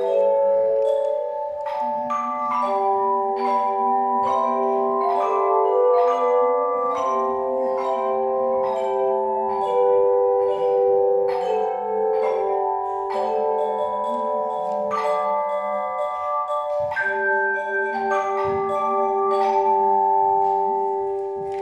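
Tone chime ensemble playing a hymn: struck chimes ring out a melody over long-sustained chords, each note starting with a soft strike and ringing on.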